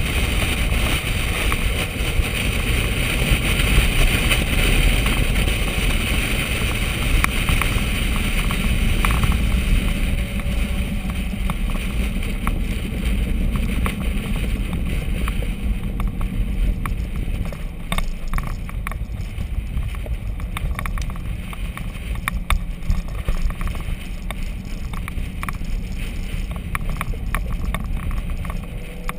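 Wind and road rush at a camera on the hood of a Corvette at track speed, with the car's low running noise underneath. The hiss eases off after about ten seconds, and scattered small clicks come through in the second half.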